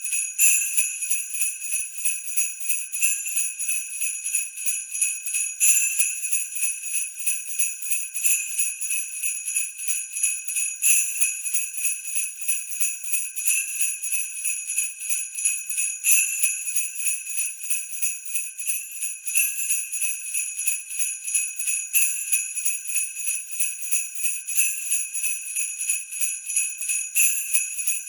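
Sleigh bells (jingle bells) shaken in a steady rhythm, a continuous bright jingle with a stronger accent every two to three seconds.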